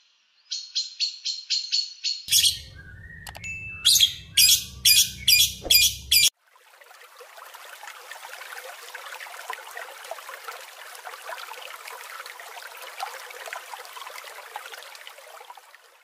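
Eurasian magpie chattering: a quick rattle of harsh, rough notes, then a slower series of louder ones, about three a second, cutting off at about six seconds. A fainter, steady hiss follows.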